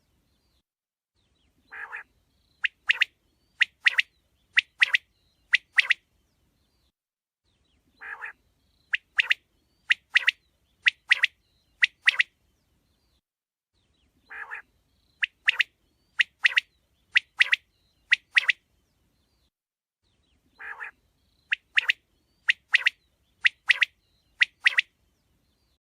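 Quail singing: a phrase repeated four times, about every six seconds. Each phrase is one soft, low note followed by a run of loud, sharp double notes.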